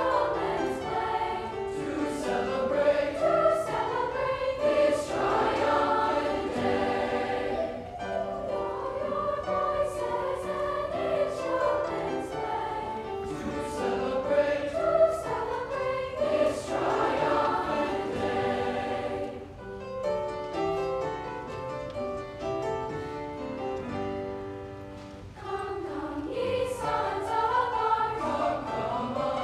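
A large children's choir singing, its phrases swelling and softening, with a quieter passage about two-thirds of the way through.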